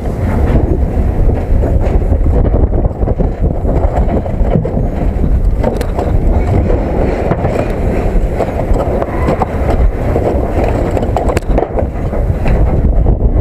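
Freight train rolling along the track, heard from on board a wagon: a loud, steady rumble and rattle with a few sharp clacks, and wind buffeting the microphone.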